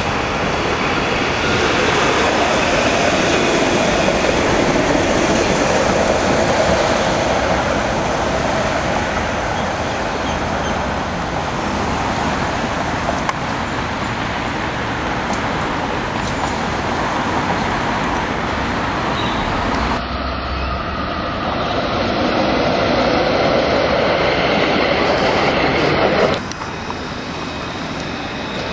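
Low-floor electric trams running along a street tramway with road traffic passing, a steady noisy rumble. The sound changes abruptly twice, about two-thirds of the way through and again near the end, where clips are cut together.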